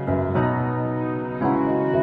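Instrumental background music, with held chords that change about once a second.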